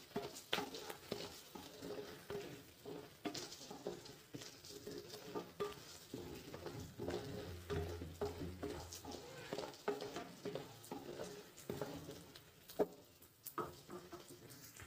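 Wooden spatula stirring and scraping chopped onion, green chillies and chana dal in a nonstick kadai, in many quick clicking strokes, over a quiet sizzle of ghee. The stirring thins out near the end.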